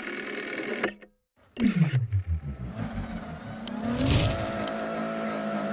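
A car engine revving: after a brief gap about a second and a half in, the revs fall away in a pulsing burble, then climb again about four seconds in and hold steady. A few sharp clicks sound over it.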